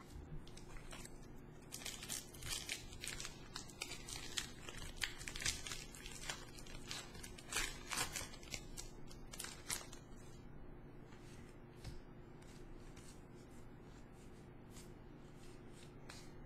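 A Pokémon trading card booster pack's foil wrapper being torn open and crinkled, a dense run of sharp crackles for several seconds. Then quieter rustling as the cards are handled.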